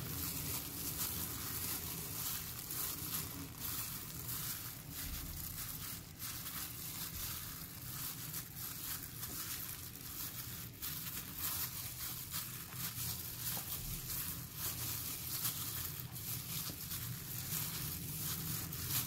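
Plastic bag worn over a hand crinkling and rustling with many small crackles as a chicken piece is pressed and turned in a bowl of flour and cornflour coating.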